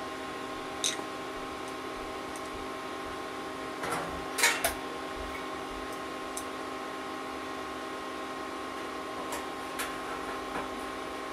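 A few scattered clicks and clinks from small parts being handled while a dryer heating element assembly is put back together, the loudest a quick cluster about halfway through. Under them runs a steady hum of several fixed tones.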